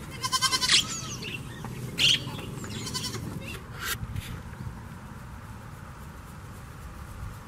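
A goat bleating: one high, wavering call in the first second, followed by shorter loud sounds about two and four seconds in.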